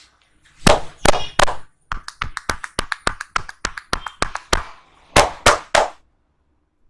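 A barber's hands slapping and tapping during a head massage. Three loud slaps come first, then a quick even run of lighter taps at about six a second, then three more loud slaps.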